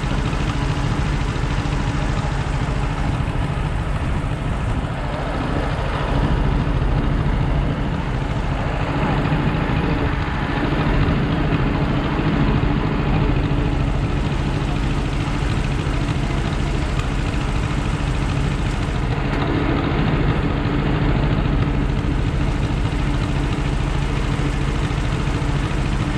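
An engine running steadily: a continuous low hum that holds evenly throughout.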